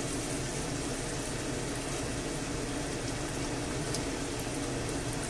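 Frying pan of pork in white wine simmering with a steady bubbling hiss while tomato sauce is poured in from a carton, with a few faint crackles near the end.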